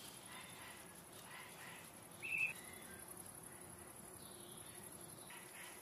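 Quiet meadow ambience: a steady high-pitched insect trill, like crickets, with one short, sharp chirp a little over two seconds in.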